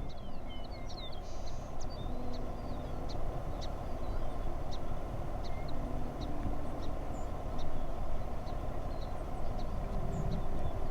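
Steady outdoor background rumble, with faint short high chips from a small bird about once a second.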